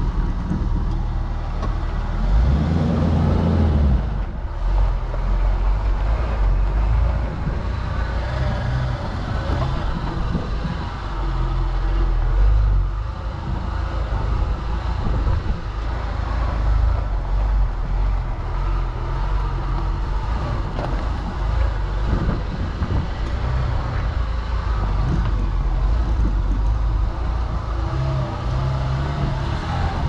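Jeep Wrangler TJ driving along a rough dirt track: engine running with a steady low rumble from the tyres and chassis, the engine note rising briefly about two seconds in.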